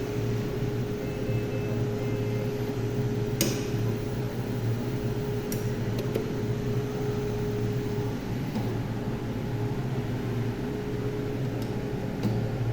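Anesthesia machine running its self-test: a steady mechanical hum with a faint steady tone that fades out about eight seconds in, broken by a few sharp clicks.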